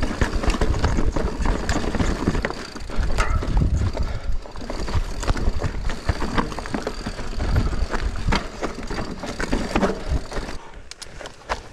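Mountain bike riding over a rocky trail: tyres rattling and crunching over loose stones, with many quick clicks and knocks from the bike and a heavy rumble. It gets quieter about ten and a half seconds in.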